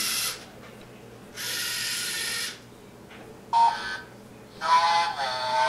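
Lego Mindstorms EV3 robot's motors whirring in two short stretches as it drives and turns. Then the EV3 brick's small speaker plays its end-of-program sound, three short electronic bursts with the middle one longest, signalling that the program is done and the treats are gone.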